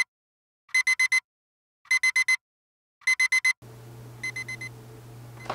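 Alarm clock beeping in quick groups of four high beeps, about one group every second and a quarter. About three and a half seconds in, a low room hum starts and one fainter group of four beeps follows.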